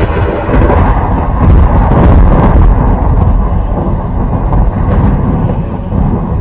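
Thunder rolling in one long, continuous deep rumble.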